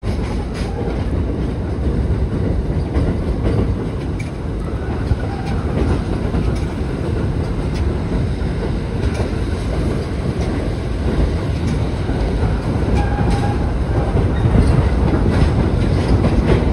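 Subway train running on nearby track, a steady low rumble with wheels clicking over rail joints.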